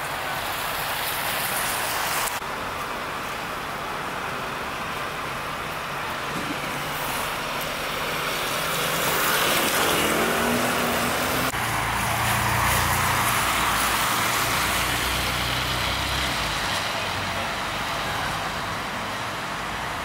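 City street traffic on wet roads: a steady hiss of passing tyres, with a heavy vehicle's engine rumble swelling louder about ten seconds in and fading a few seconds later.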